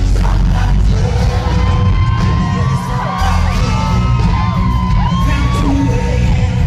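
Country-rock band playing loud at a live concert, with heavy bass and a male singer singing into a microphone. Crowd whoops and yells ride over the music.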